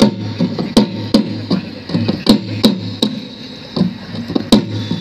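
Folk dance accompaniment of percussion: sharp wooden-sounding knocks, close to three a second, over a steady low drum beat.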